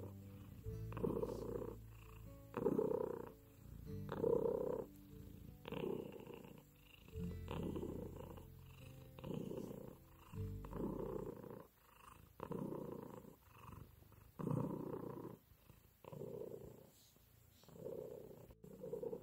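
Turkish Angora cat purring close up, a rough rumble that swells and fades with each breath about every one and a half to two seconds.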